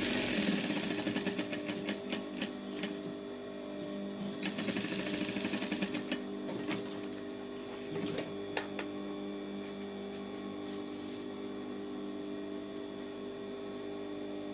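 Industrial single-needle lockstitch sewing machine stitching braided trim onto caftan fabric in two short runs, in the first couple of seconds and again from about four to six seconds in, then stopping. A steady hum carries on underneath, with a few light clicks as the fabric and trim are handled.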